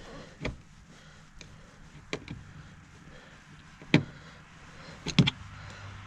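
Scattered clicks and knocks of a screwdriver and the plastic interior door-handle trim being worked, a few seconds apart, the loudest about four seconds in and a quick double knock just after five seconds. A low steady hum comes in near the end.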